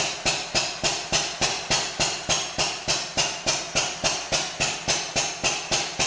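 Hit-and-miss stationary engine running with a sharp, evenly spaced beat about three and a half times a second.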